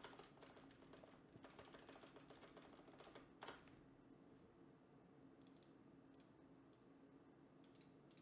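Faint computer keyboard typing: a quick run of keystrokes from about one to three and a half seconds in, ending on a louder key press, then a few scattered key presses near the end.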